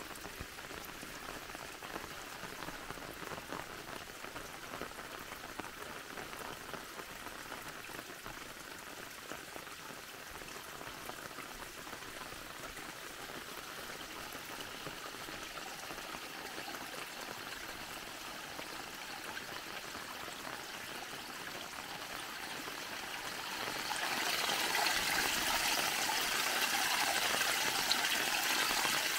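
Rainwater runoff trickling over stones and into puddles in a creek bed, a soft steady flow. About 24 seconds in it gives way to a louder, steady splashing of muddy road runoff pouring over the stone lip of a culvert outlet.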